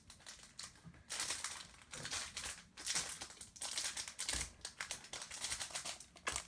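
Foil wrapper of a Pokémon booster pack crinkling in irregular bursts as it is handled and pulled at to get it open.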